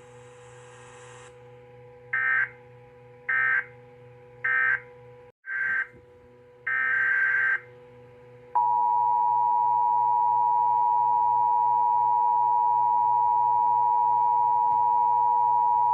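Emergency Alert System tones. A string of short, harsh digital data bursts (SAME code) starts about two seconds in, the last one longer, and from about halfway through the loud two-tone EAS attention signal sounds steadily, announcing the next alert. A faint steady hum runs underneath.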